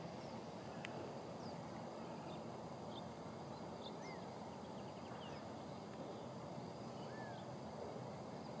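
Quiet outdoor desert ambience: a steady low rush of wind noise with faint, scattered bird chirps and short whistled glides, and a sharp click at the very start.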